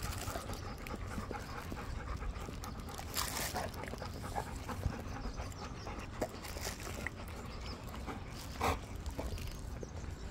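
Golden retrievers panting close by, with a few short smacking clicks scattered through.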